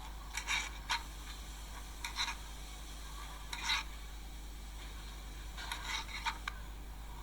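A kitchen knife cutting food, heard as about eight short scraping strokes at uneven intervals, some in quick pairs, over a low steady hum.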